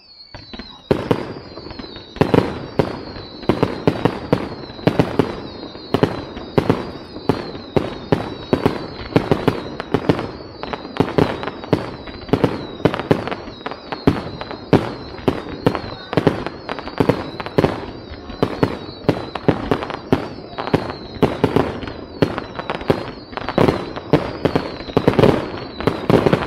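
Aerial fireworks display firing a rapid barrage of shots and bursts, several bangs a second, beginning about a second in, with a high steady whistle running underneath.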